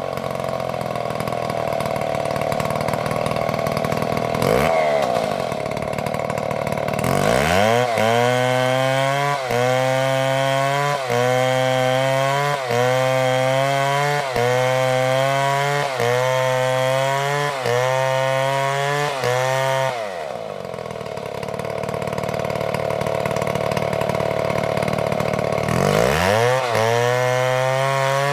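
Chainsaw engine running at high revs while cutting wood. Its pitch holds steady at first, then from about a quarter of the way in sags and recovers in a regular rhythm, about every second and a half, as the chain bites under load; it runs steady again for a few seconds before the rhythm returns near the end.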